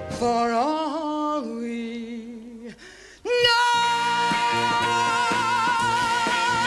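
A woman singing with band accompaniment: a sung phrase that fades out before the midpoint, then, after a brief pause, a loud long held note with vibrato over the band's accented chords, the song's big finish.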